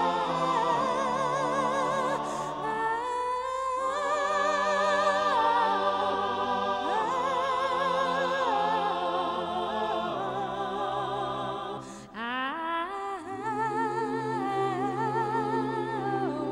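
Unaccompanied vocal music: several voices sing long, held notes in harmony with a wavering vibrato. The singing briefly drops away about twelve seconds in, then picks up again.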